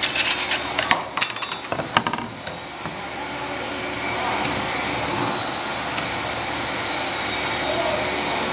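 A quick run of sharp metallic clicks and clinks from a metal tin and its lid being handled, over about the first two seconds, then a steady background hum that grows a little louder about four seconds in.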